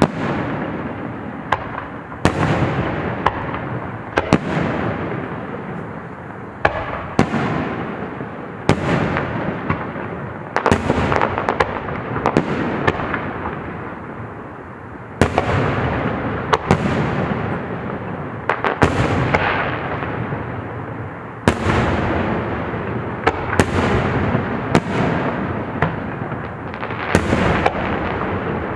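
Aerial fireworks exploding one after another, a sharp boom every second or two, each followed by a long rumbling echo and crackle that overlaps the next burst.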